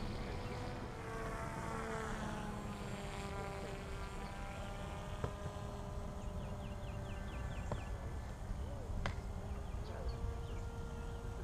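Distant buzz of an FPVraptor V2 RC glider's brushless motor and pusher propeller in flight. Its pitch falls over the first few seconds, holds steady, then rises again near the end, over a low rumble.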